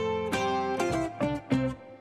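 Background music: plucked string instrumental with quick notes, in the manner of guitar or mandolin.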